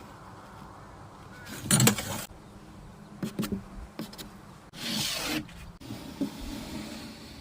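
Workshop handling noises: a few knocks and clatters of wood and tools, the loudest about two seconds in, with a short scraping rub a little after the middle.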